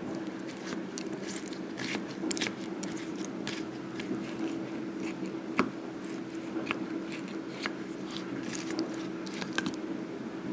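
A spoon scraping and clicking against a bowl as fruit, granola and protein powder are stirred, many small irregular knocks over a steady low hum.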